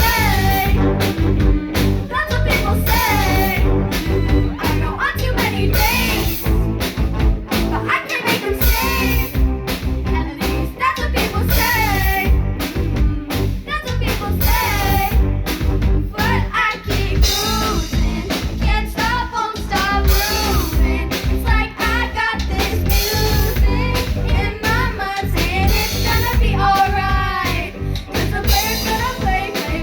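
Live rock band playing a song on drum kit and other instruments, with a lead singer's voice over it.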